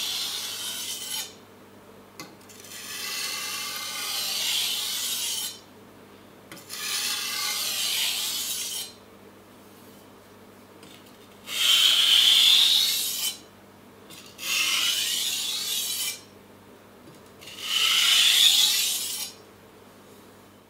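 Chef's knife edge scraping across a wet 400-grit Japanese water stone in about six separate passes, each a second or two long, with short pauses between. These are deburring strokes that force off the burr left by sharpening.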